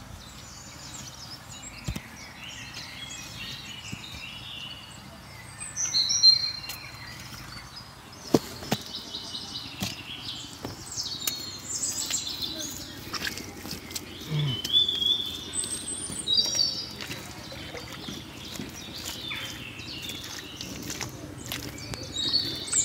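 Small birds chirping and calling repeatedly, in short high whistles and quick up-and-down notes, with scattered clicks and knocks from hands working wet mud.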